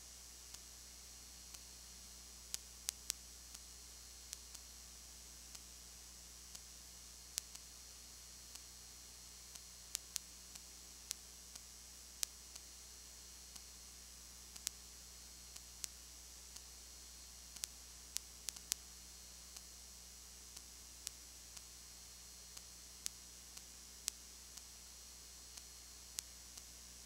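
Recording noise only: a steady low electrical hum and a high hiss, with irregular sharp clicks about one to two a second.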